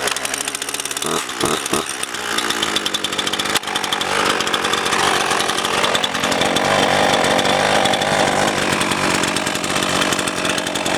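RedMax GZ400 two-stroke chainsaw cold-started on half choke. The engine sputters at first, catches about two seconds in and keeps running, louder from about four seconds in.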